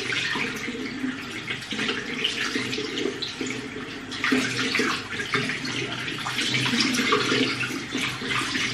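Bathroom tap left running into the sink, a steady stream of water splashing, while it waits to run warm.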